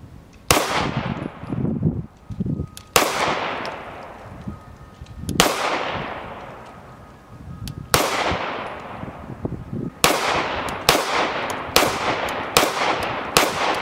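Grand Power X-Caliber rotating-barrel pistol firing nine shots, each with a ringing tail. The first four are spaced about two and a half seconds apart; the last five come quicker, a little under a second apart.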